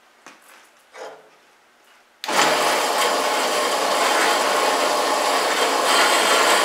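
A few faint handling knocks, then about two seconds in the Boice Crane bandsaw is switched on and runs with a loud, steady whir of motor and blade.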